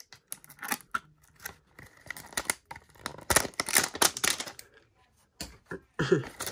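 Plastic packaging of a trading-card pack crinkling and tearing as it is ripped open: a run of irregular crackles and rustles with a short lull near the end.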